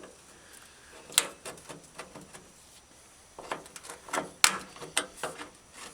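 Sharp metal clicks and scraping of a small pry bar working the old felt window-channel strip and its clips loose inside a 1960 Ford F100 door. There is a single click about a second in, then a run of clicks and scrapes from about three and a half seconds in, loudest near four and a half.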